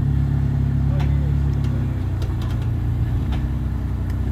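Jeep rock crawler's engine running hard under load as it climbs a steep rock ledge, a steady low rumble with several short sharp clicks partway through.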